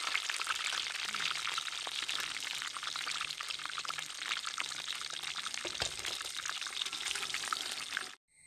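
Hot oil sizzling and crackling around battered chicken lollipops deep-frying in a wide aluminium pan. It cuts off suddenly near the end.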